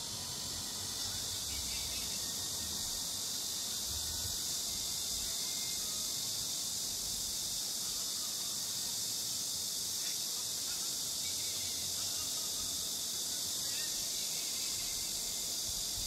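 Steady, unbroken high hiss of a chorus of insects.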